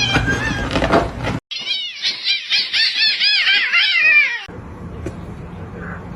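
A cat meowing: a short call at the start, then a quick run of short high-pitched mews, about five a second, for some three seconds.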